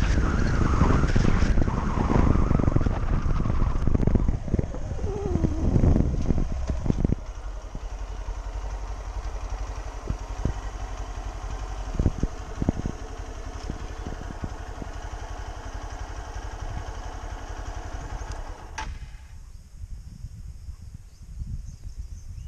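Motorcycle engine and wind noise while riding, the engine note rising and falling. About seven seconds in the sound drops to a quieter steady low rumble with a few knocks. Near the end most of the noise falls away.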